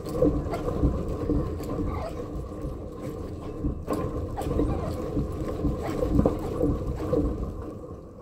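A French Bulldog growling and grunting without a break as he bites and pulls against a bungee-tethered bite wedge. The noises come from drive and effort, not pain. They fade near the end.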